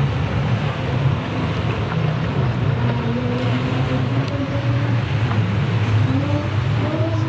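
Racing jet ski engines running on the water, several revving so that their pitch rises and falls, over a steady low rumble.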